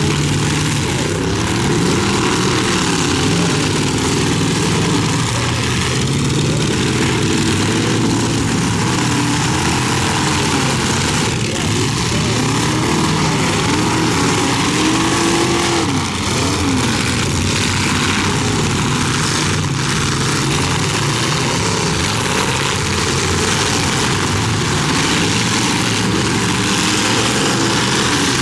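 Several full-size demolition derby cars' engines revving up and down all at once, with a few knocks of cars colliding.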